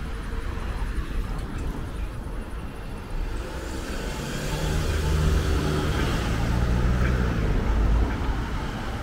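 Road traffic: cars driving past, with one vehicle's engine hum and tyre noise building from about four seconds in as it passes close, loudest near the end.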